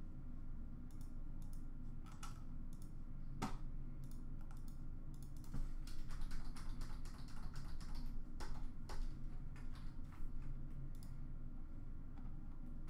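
Computer keyboard typing and clicking in irregular runs, over a steady low hum.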